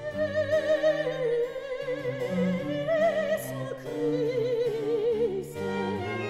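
Solo soprano singing long, held notes with a marked vibrato, accompanied by a small baroque ensemble of violins, cello and harpsichord.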